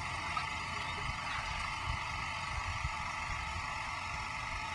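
Steady outdoor shoreline background: an even hiss with a low, irregular rumble, with no distinct event standing out.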